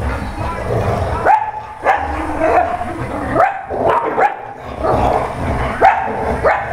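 Dogs playing tug-of-war with a rope toy, barking and yipping in short sharp calls, about one or two a second.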